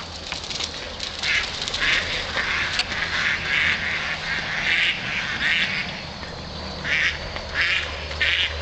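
Ducks quacking over and over in short, rapid calls as dogs chase them. The calls ease briefly about six seconds in, then start again.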